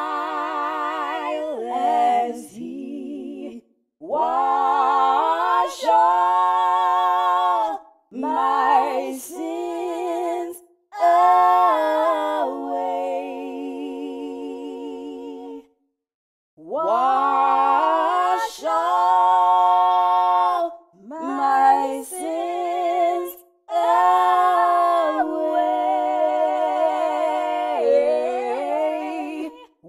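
A woman singing a slow hymn a cappella, her voice layered in harmony, in long held phrases with short breaks between them and one brief full pause about halfway through.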